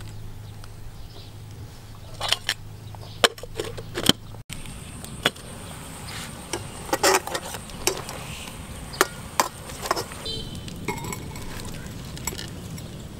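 Scattered sharp clicks and light knocks from handling ingredients and utensils around a metal cooking pot, over a steady outdoor background. A few short high chirps come near the end.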